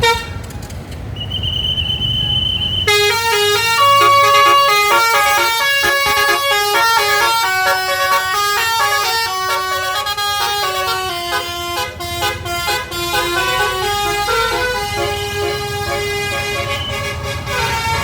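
Bus's Basuri telolet horn playing a long multi-note tune, each note a steady pitched tone stepping up and down, starting about three seconds in. A brief high steady tone comes just before it, over low traffic rumble.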